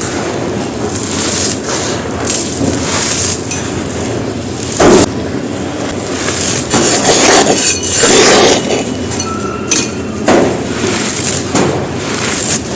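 Dry, gritty white concrete being crumbled and crushed, a continuous crackle of breaking pieces with several louder crunches, the loudest about five seconds in.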